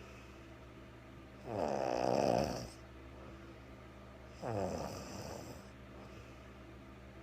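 A woman with a cold snoring in her sleep: two snores about three seconds apart, the first, about a second and a half in, the louder, each lasting a little over a second.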